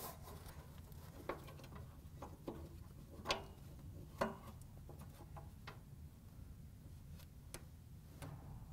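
Faint, scattered clicks and taps of a clothes dryer's drive belt and idler pulley being handled as the belt is routed through the pulleys, the two loudest about three and four seconds in.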